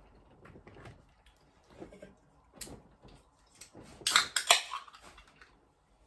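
A metal fork clinking and scraping against a foil food tray during eating, with scattered light clicks and then a loud flurry of clatter about four seconds in.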